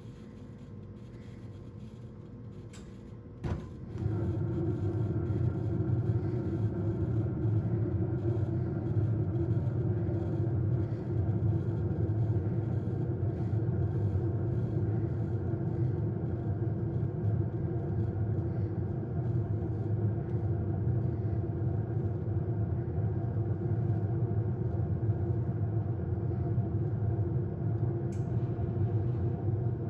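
Gas furnace running with its draft inducer motor humming steadily, then a click about three and a half seconds in as the furnace blower motor switches on, followed by the blower's much louder steady low rumble.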